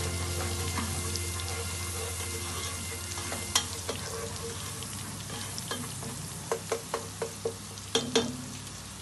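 Beef steaks sizzling in hot fat in a frying pan, a steady hiss. A quick run of sharp pops and crackles comes in the second half.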